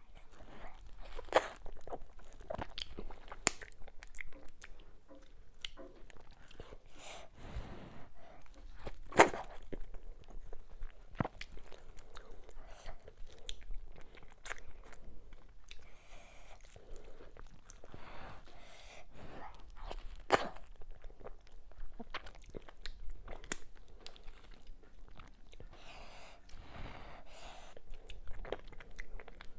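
Close-miked eating by hand: soft, wet chewing of fufu and sticky ogbono soup, with lip smacks and finger-licking sounds. Several sharp smacks stand out, the loudest about a second and a half in, at three and a half seconds, at nine seconds and at twenty seconds.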